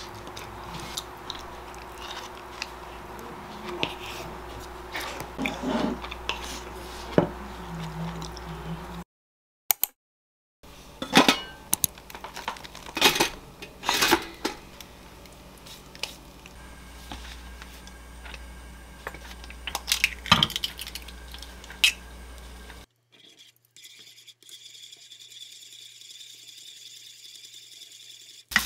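Kitchen handling sounds: a spoon clinking and scraping in a wooden bowl, then a series of sharp clicks and knocks as a two-slot pop-up toaster is loaded and its lever worked.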